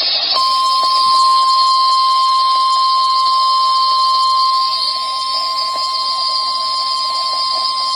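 NOAA Weather Radio 1050 Hz warning alarm tone: one steady high tone starting about half a second in and holding, over radio static hiss. It is the alert tone that switches on weather-alert receivers, broadcast here as the station's weekly test.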